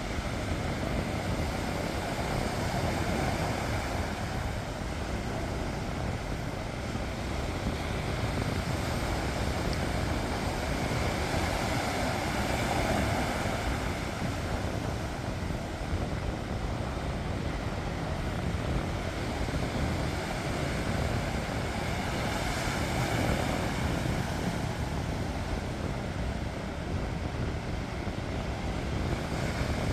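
Sea waves washing onto the shore: a continuous rushing with slow swells as waves break, over a low rumble.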